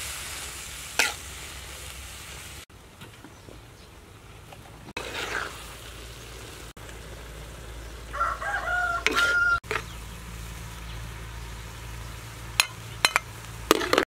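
A rooster crowing once, about eight seconds in, the loudest sound here. Near the end, a few sharp clicks of a metal spatula knocking against the steel wok and plate while the stir-fry is served.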